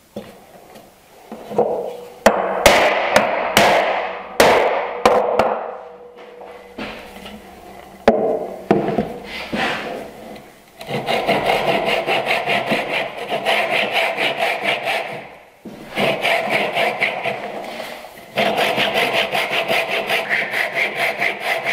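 A few sharp knocks of tools and wood on a bench, then a hand saw cutting into a hardwood board held in a miter jack: three runs of quick, short strokes, several a second, starting the cut.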